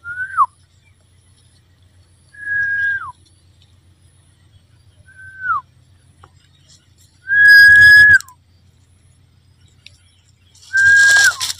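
A person whistling five times, each note held on one pitch and then dropping off at the end; the last two are the loudest.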